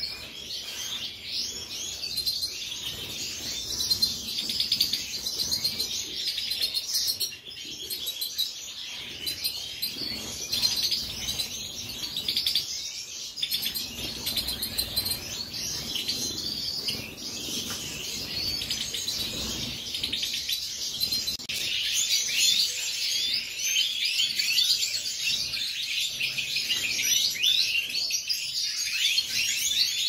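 A group of European goldfinches twittering and singing together: a dense, unbroken chorus of many overlapping high chirps and quick trills.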